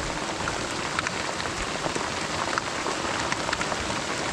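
Heavy rain falling: a steady hiss of rain with many separate drop hits close by.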